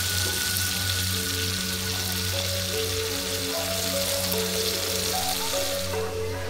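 Pot of water at a rolling boil with tagliatelle nests cooking in it: a steady bubbling hiss over background music. The bubbling cuts off about six seconds in, and the music carries on.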